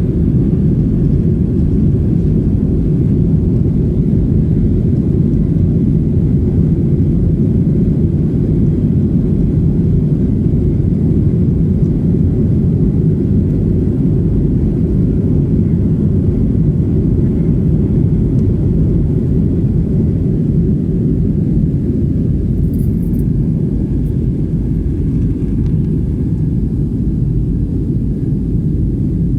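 Passenger jet airliner's engines and airflow: a loud, steady, low rumble that holds even throughout.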